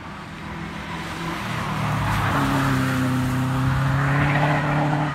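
Hill-climb race car accelerating up the course towards the listener, its engine getting louder and its pitch climbing steadily.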